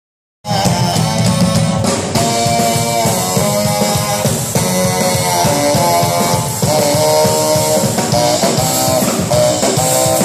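Saxophone and drum kit playing loud punk rock live. The saxophone plays moving melodic lines over busy drumming, cutting in abruptly about half a second in.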